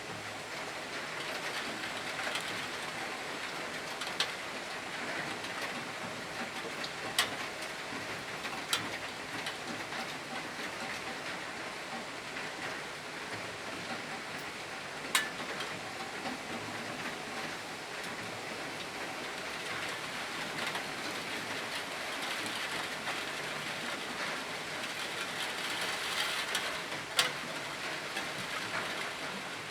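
Steady rain falling, with a few sharper single drop taps standing out now and then.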